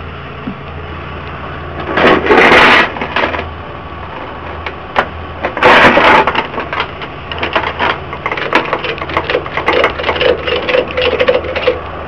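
Ratchet tie-down strap being cranked tight over a car's wheel on a flatbed tow truck: a fast run of clicks, about six a second, through the second half, after two loud bursts of noise. The tow truck's engine idles steadily underneath.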